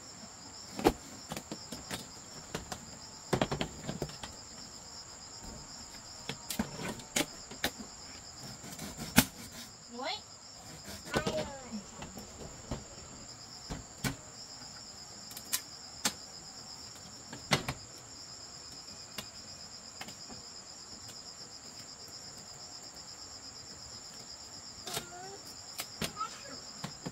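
Insects chirring in a steady, high-pitched drone, with scattered sharp knocks and taps of handwork that come irregularly through the first two-thirds and again a few times near the end.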